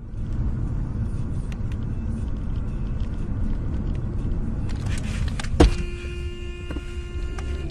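Cabin road noise and engine rumble of a car being driven in town. About five and a half seconds in there is a single sharp knock, then a car horn sounds steadily for about two seconds.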